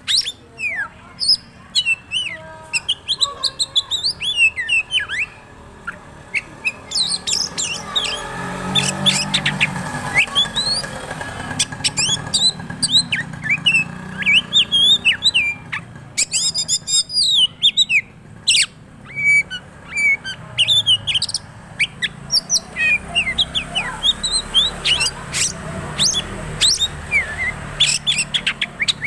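Oriental magpie-robin (kacer) singing continuously: a fast, varied stream of sharp whistles and short rising and falling notes, broken by scratchy bursts about halfway through.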